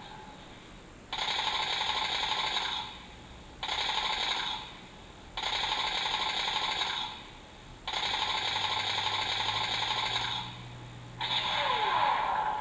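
Sound effects played through the MS-09 Dom alarm clock's small speaker: five separate bursts of mechanical-sounding noise, each lasting one to two and a half seconds, with short gaps between them.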